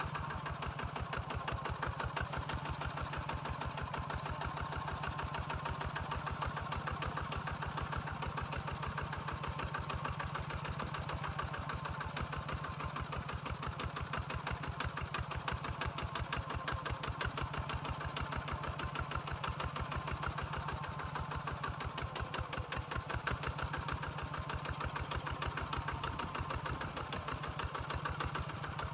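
Two-wheel walking tractor's single-cylinder diesel engine running steadily under load as it pulls a plow through dry field soil, with an even, rapid chugging beat.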